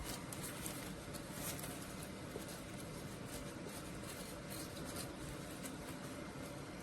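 Aquarium sand waterfall running: a steady hiss of air-lift bubbling and falling sand, with many faint small ticks and patter.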